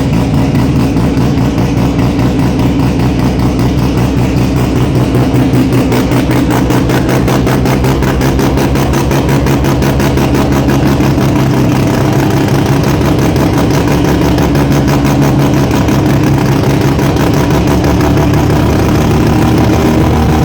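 Datsun 1200 coupe race car's engine idling steadily and loudly, with an even, rapid pulse of firing strokes; the engine is newly running and not yet dyno-tuned.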